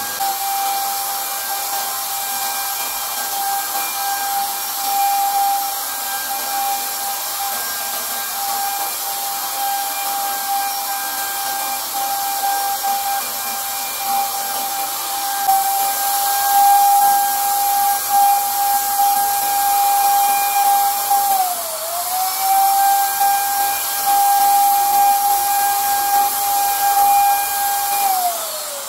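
Handheld electric paint sprayer running, its motor giving a steady high whine with a hiss of spray. The pitch dips briefly about two-thirds of the way through, and the motor starts to wind down right at the end.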